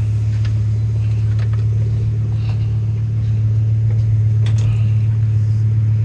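A Volvo 850's five-cylinder engine idling steadily with a low hum, freshly started and running well.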